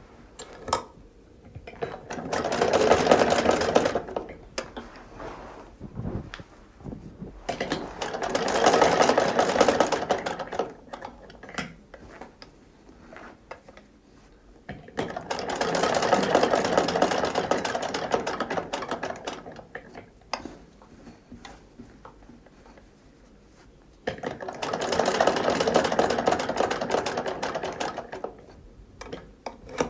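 Hand-operated sewing machine run in four short bursts of a few seconds each, its rapid stitching rattle starting and stopping, with scattered small clicks in the pauses between runs.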